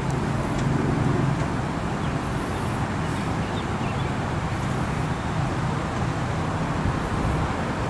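Helicopter running steadily on the pad, a constant engine-and-rotor drone as it readies for departure.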